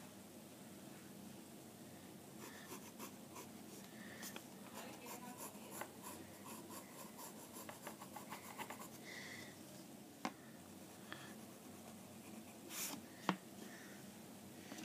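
Colored pencil shading on sketchbook paper: a faint, steady scratchy scribbling of quick back-and-forth strokes, with a few sharp taps in the last five seconds.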